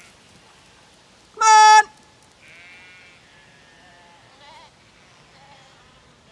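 Zwartbles lambs bleating faintly in reply to a shepherd's call, several wavering bleats in the second half. About a second and a half in, one loud, short, steady-pitched call from the shepherd calling the flock in.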